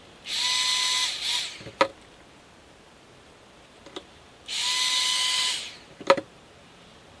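Handheld hot air gun running in two short blasts of about a second each: a steady motor whine over rushing air that tails off as it stops, each blast followed by a sharp knock.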